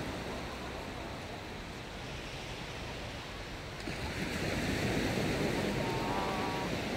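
Waves breaking on a sandy beach, mixed with wind on the microphone; the rush swells and grows brighter about four seconds in.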